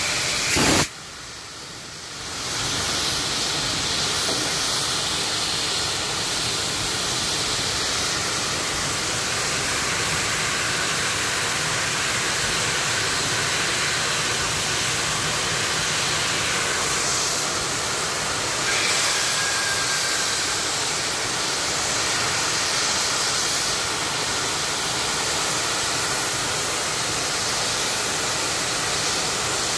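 Steady hiss of steam from a 1947 Baldwin Mikado (2-8-2) steam locomotive, broken by a brief drop in level about a second in.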